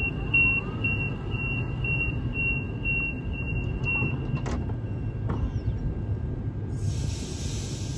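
Suburban electric train's door-closing warning: a quick run of high beeps, about two a second, over the low rumble of the train's equipment. The beeps stop about four seconds in as the doors shut with a knock, and a steady hiss starts near the end.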